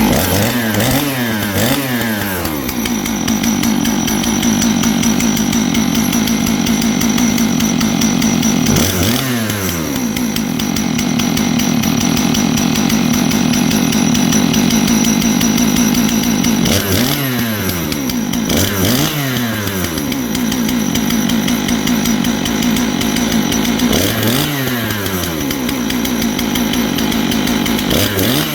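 A 661-class clone chainsaw's big two-stroke engine running steadily, with about six short swings in engine speed where the pitch dips and climbs back. It has a fresh ignition coil, and its carburettor is finicky, so it is not yet running perfectly.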